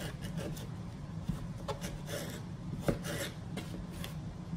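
Kitchen knife slicing a yellow squash into strips on a plastic cutting board: a few soft taps of the blade on the board, the clearest about three seconds in, over a steady low hum.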